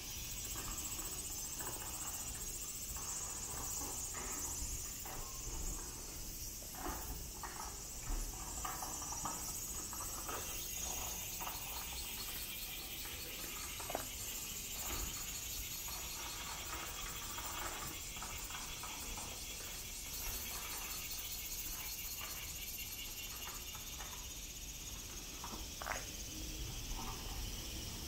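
Insects trilling in a steady, high chorus, with a rapid pulsing that grows stronger about ten seconds in. A few soft, brief knocks sound over it now and then.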